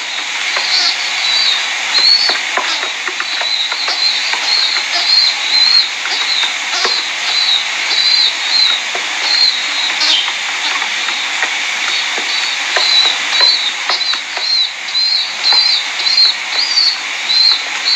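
A young pigeon (squab) peeping, thin high-pitched cheeps repeated about twice a second over a steady background hiss, with a short lull about two-thirds of the way through.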